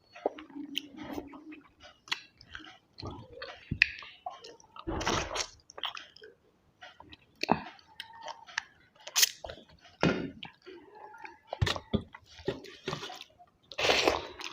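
A person chewing food close to the microphone, with irregular short, sharp mouth sounds.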